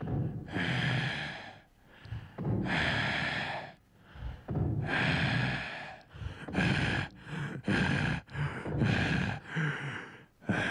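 A person breathing heavily in loud gasps: three long, slow breaths, then from about six seconds in a run of shorter, quicker ones.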